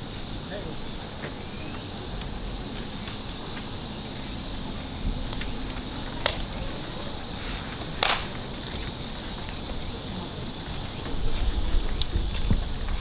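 Steady high-pitched chirring of insects, with a few sharp clicks, the loudest about eight seconds in, and a low rumble that grows near the end.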